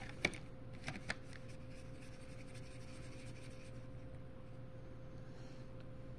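Paintbrush working in a plastic watercolor palette: a few light clicks and taps in the first second, then a soft scrubbing as the brush picks up paint.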